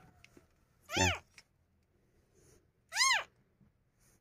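Orphaned newborn kitten mewing: two short, high-pitched cries about two seconds apart.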